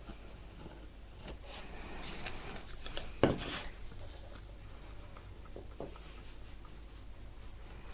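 A plastic bottle of PVA glue set down on a wooden workbench with one sharp knock about three seconds in, amid light rustling and handling noise, with a couple of small clicks a few seconds later.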